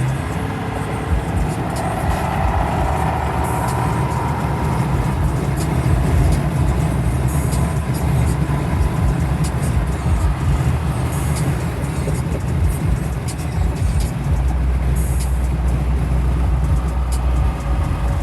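A motor vehicle running: a steady low rumble with road noise, joined by a stronger deep hum for the last few seconds.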